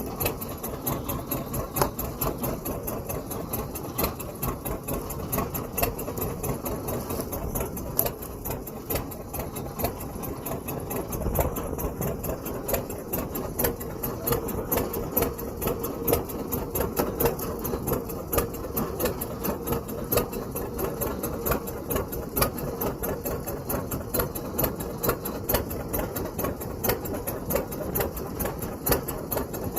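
A fishing boat's engine running steadily at low speed, with a regular fast ticking on top.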